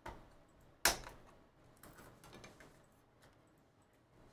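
Hands opening a trading card pack and handling the cards: scattered clicks and rustling of wrapper and card stock, with one sharp click about a second in.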